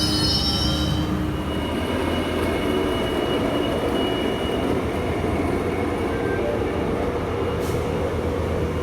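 Metrolink commuter train on the rails: high wheel squeal fades out about a second in, leaving a steady low rumble.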